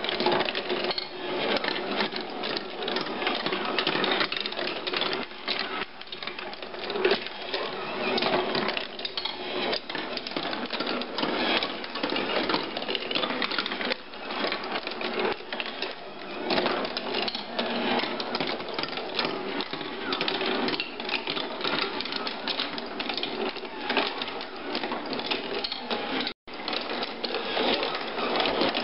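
Wooden marble machine running: steel marbles rolling and clattering along hardwood tracks and through its mechanism, a dense, continuous rattle of small clicks and knocks. The sound cuts out for an instant about two seconds before the end.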